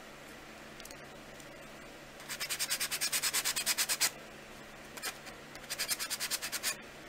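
A worn drywall sanding block rubbed over a baked polymer clay piece in two runs of rapid back-and-forth strokes, the first starting about two seconds in and the second about five seconds in. It is sanding the gold mica paint back from the raised detail.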